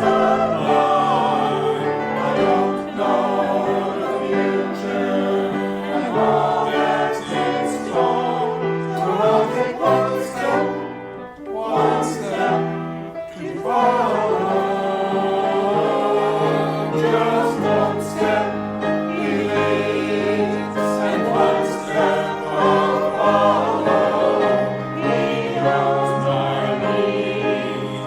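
Choir singing in held, slow-moving chords, with a short break in the sound about halfway through.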